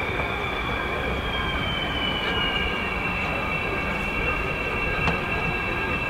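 Fighter jet engine running with a steady rumble and a high turbine whine. One whining tone slides slowly down in pitch over the first few seconds, then holds.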